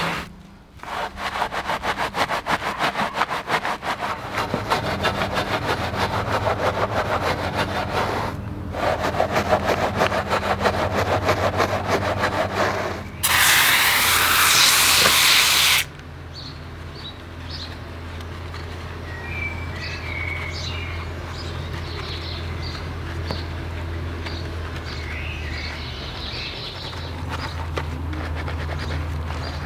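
A wheel brush scrubbing a foam-covered alloy wheel in quick strokes, then a hand pump sprayer hissing out a spray for about three seconds, then softer, lighter brushing. A low steady hum runs underneath.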